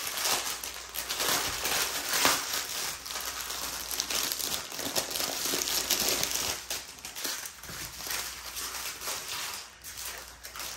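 Plastic packaging crinkling: a clear plastic bag being handled and opened as a strip of small sealed plastic bags of diamond-painting drills is pulled out and spread about. Dense, irregular crinkling that thins out near the end.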